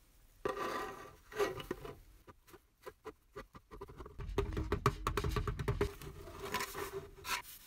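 Gloved hands gripping, rubbing and pressing on the bare sheet-metal hull of a 1930s JEP toy boat held in a bench vise: irregular scrapes, rubs and sharp clicks, fullest around the middle.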